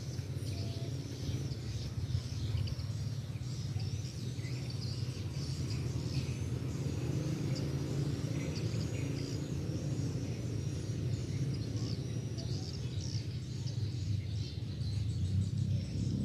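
Outdoor ambience: a steady low rumble, with high, short chirps repeating over and over throughout.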